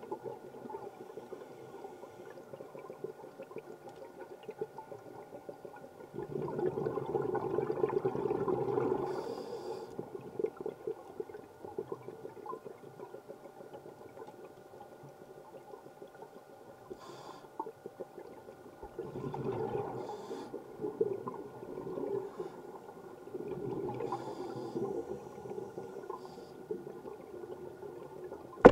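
Scuba breathing heard underwater: three long rushes of exhaled bubbles from a regulator, about six, nineteen and twenty-three seconds in, with quieter breathing between them over a faint steady hum. A sharp click comes at the very end.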